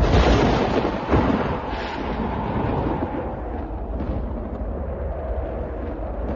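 Thunder: a sharp crack at the start and another about a second in, then a long rolling rumble, over the steady noise of storm wind.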